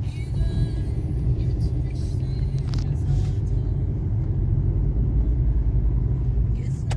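Car engine and tyre rumble heard from inside the cabin while driving slowly along a road, steady throughout, with a single sharp click near the end.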